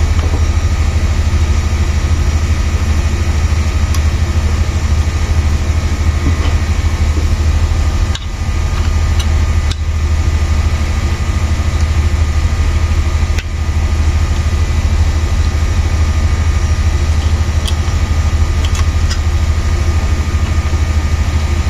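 Steady mechanical hum with a strong low drone and a few fixed tones above it. Two brief dips come about 8 and 13 seconds in, and a few faint small clicks sound through it.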